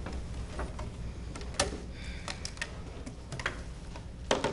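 Scattered light clicks and taps from a laptop being handled and buttons pressed on a wall-mounted control panel, the loudest a quick double click near the end, over a low steady room hum.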